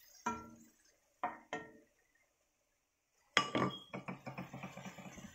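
Wooden spatula knocking against an aluminium wok three times, each with a short ringing clink. About three and a half seconds in, a loud sudden sizzle breaks out and carries on as fast crackling, as a little water hits the hot wok of stir-fried meat and carrots.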